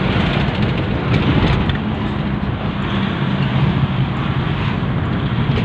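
Engine and road noise heard from inside a moving vehicle's cabin: a steady low drone.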